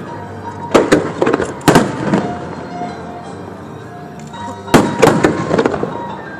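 Aerial fireworks bursting in sharp bangs: a quick cluster of about four about a second in, and another cluster near the end, with music playing underneath.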